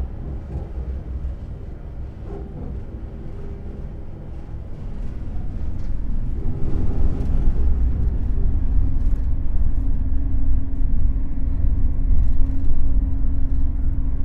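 Train running with a continuous low rumble that grows louder about halfway through, joined by a steady hum and scattered faint clicks.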